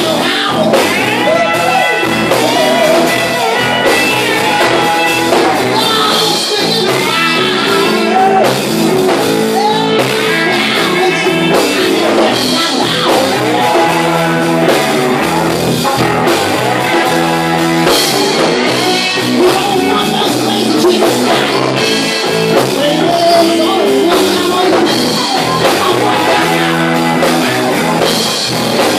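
Live blues band playing: electric guitars (a Fender Stratocaster and a Gibson Les Paul), bass and drum kit, with a man singing.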